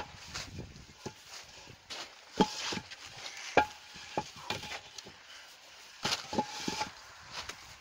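Heavy white masonry blocks knocking and clunking against one another as they are lifted off a stack and set down, about a dozen irregular knocks, a few with a short ringing note.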